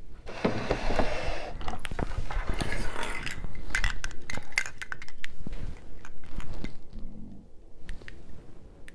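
Plastic bulbs on a string of large Christmas lights clicking and rattling against one another as the string is handled, with rustling and many scattered sharp clicks, quieter toward the end.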